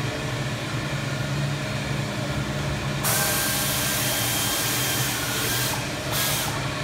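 Repair-shop noise: a steady low hum, then about three seconds in a loud hiss of air that lasts a couple of seconds, and a second short hiss near the end.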